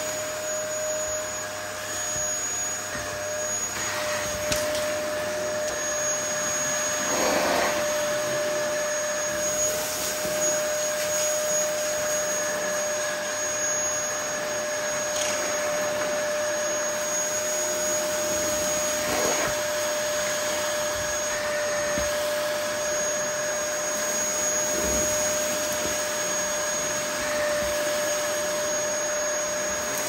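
Dyson DC08 cylinder vacuum cleaner running steadily with a constant whine, its turbine floor head, which has stopped working, being pushed over carpet. A few brief crackles now and then.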